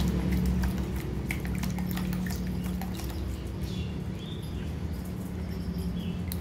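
Puppies lapping and eating from a plastic tray: quick, irregular wet clicks and smacks over a steady low hum.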